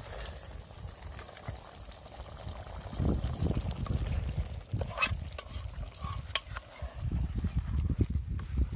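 Chicken curry simmering in a metal pot over a wood fire while a metal spoon stirs it, with a few clinks of the spoon against the pot around the middle. A low rumble runs underneath, louder from about three seconds in.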